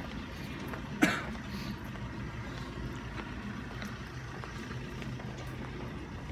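Street background with a steady low engine hum, typical of a vehicle idling, and one brief sharp noise about a second in.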